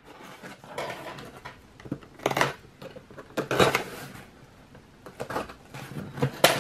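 Cardboard shipping box being opened by hand: packing tape and cardboard flaps rustling and scraping in several short bursts.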